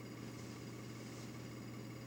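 Steady low electrical hum with a constant hiss underneath: the background noise of an old camcorder recording in a quiet room, with no other events.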